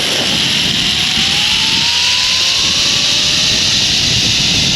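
Zip-line trolley running down the steel cable: a loud, steady whirring hiss, with a faint whine that rises slowly in pitch.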